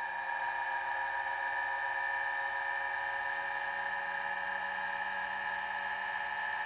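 Homemade pulse motor running steadily: a 3D-printed magnet rotor spun by a D coil fired from a Hall sensor circuit, giving an even whine of several high, fixed tones.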